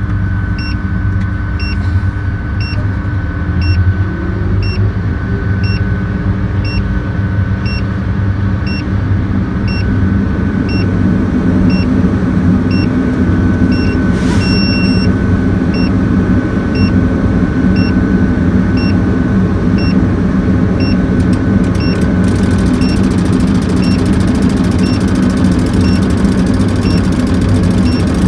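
Liebherr all-terrain mobile crane's diesel engine running steadily, with a thin high whine over the engine hum and faint short high beeps repeating about every 0.7 seconds; it grows a little louder about ten seconds in.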